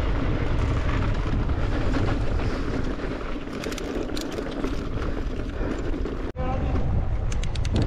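Wind rushing over the microphone while an Evil Insurgent mountain bike rolls fast down a dirt bike-park trail, its tyres on the dirt and the frame rattling. Fast ticking comes in around four seconds in and again near the end. The sound cuts out briefly about six seconds in.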